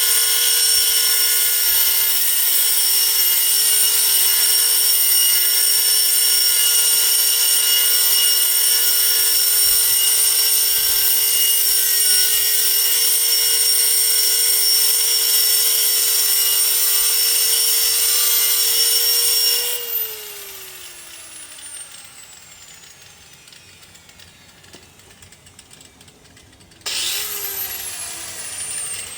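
Hammerhead 6-amp 4.5-inch electric angle grinder running flat out with a steady high whine, its pitch dipping slightly a couple of times under load as it cuts a chain link fence post. About twenty seconds in it is switched off and spins down with falling pitch; near the end it is briefly triggered again and winds down once more.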